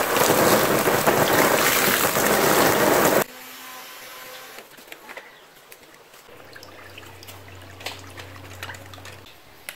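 A stream of water pouring and splashing into an inflatable paddling pool, a loud steady rush that cuts off abruptly a little over three seconds in. After that, only faint light splashes and, from about the middle to near the end, a low steady hum.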